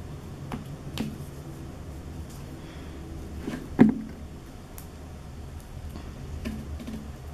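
Close-up handling noise of fingers on skin and a watch strap: scattered light clicks, taps and rubbing, with one sharp knock about four seconds in.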